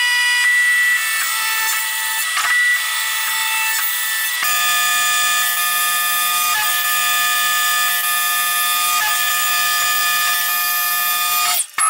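Tormach PCNC 1100 CNC mill's end mill cutting an aluminium part: a loud, high-pitched cutting whine of several tones at once, changing to a new pitch a few times as the toolpath changes, with a short break near the end.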